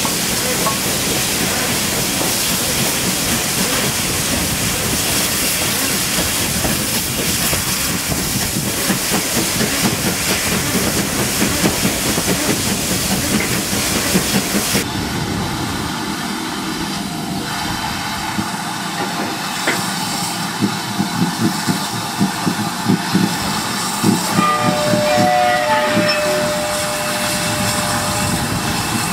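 GWR 5600 class 0-6-2T tank engine 5643 and its train on the move, heard from just behind the engine: a loud, steady rush and hiss. About halfway through it changes to a quieter run with a regular rhythmic beat, and a thin steady squeal sounds for a few seconds near the end.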